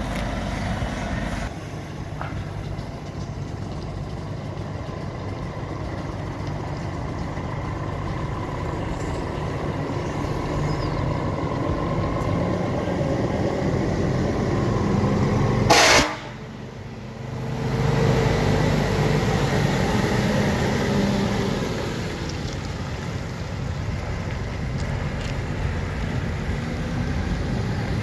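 Scania semi truck pulling a long trailer drives past with its diesel engine running, and gives one very loud, short blast of its air horns about halfway through. The engine then pulls away.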